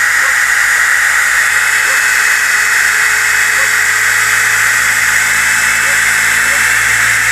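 DeWalt DWE6401DS disc sander running steadily against a wooden board, a constant loud hiss of abrasive on wood as it sands off glue squeeze-out.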